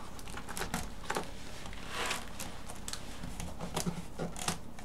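Hands handling a large cardboard box, feeling for a way to open it: scattered light taps, scrapes and rustles of cardboard, with a longer scrape about two seconds in.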